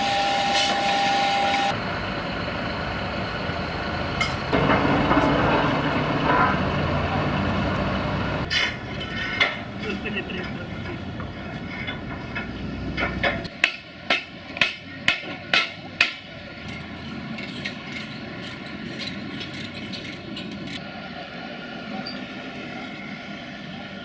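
Heavy-haulage work site: steady machinery running, with workers' voices. Midway comes a run of about six sharp metal knocks in quick succession.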